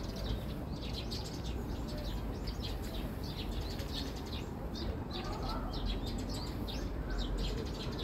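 Small birds chirping in quick, rapid strokes from the trees, over a steady low rumble.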